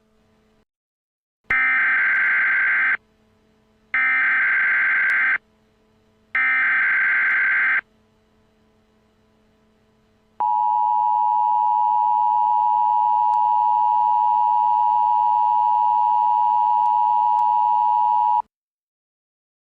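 Emergency Alert System tones: three bursts of SAME header data, each about a second and a half long with short gaps between them, followed by the steady two-tone attention signal held for about eight seconds. Together they announce that an emergency voice message follows.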